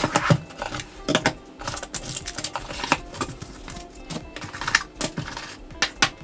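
Cardboard packaging and small plastic parts being handled: an irregular run of clicks, taps and rustles as the box is opened and the items are set down on a table.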